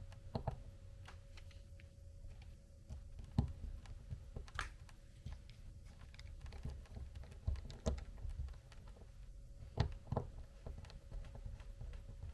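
Irregular small clicks and taps of an RC crawler wheel and its mini beadlock ring being handled and turned to line up the screw holes, over a faint steady hum.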